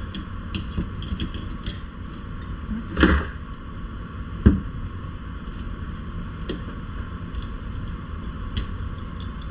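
Small clicks and scrapes of a metal pick working an old volume spacer out of a Fox Float X air shock's air can, with a brief high metal scrape early on and two louder knocks near the middle.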